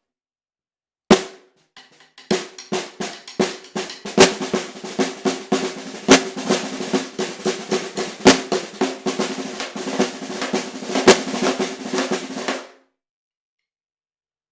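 Hammered brass Ludwig Black Beauty snare drum played: one sharp stroke about a second in, then a fast run of strokes and rolls with several loud accented hits. The run stops abruptly near the end.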